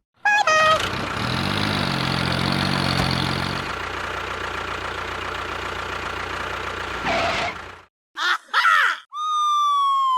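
An engine starts up, runs steadily for several seconds and then cuts off. A long tone falling in pitch begins near the end.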